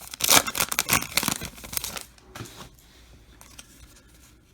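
A baseball card pack's wrapper being torn open and crinkled in the hands: a dense run of crackling rustles for about two seconds, then only faint handling sounds.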